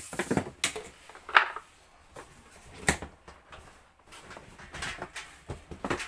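The ribbed plastic hose of an EDON ED8-30L wet/dry vacuum cleaner being handled and moved about: a series of knocks, clatters and scrapes. The loudest knock comes about a second and a half in.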